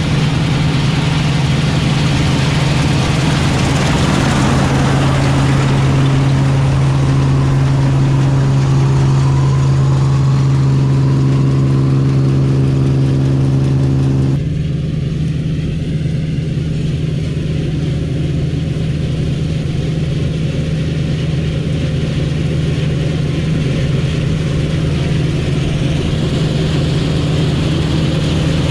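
Claas Dominator 85 combine harvester's engine and machinery running with a steady drone. The sound changes abruptly about halfway through.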